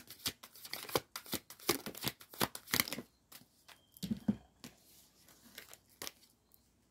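A deck of cards being shuffled by hand: a rapid run of crisp card flicks and clicks for about three seconds, then a few scattered clicks.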